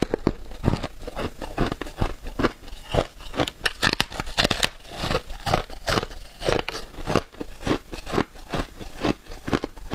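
Blue-dyed freezer frost crunching as it is bitten off a slab and chewed, close-miked: a rapid run of crisp, sharp crunches, several a second.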